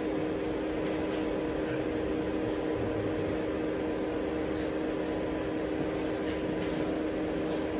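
A steady mechanical hum at an even level, with several fixed tones, like a running fan or motor, and a few faint ticks near the end.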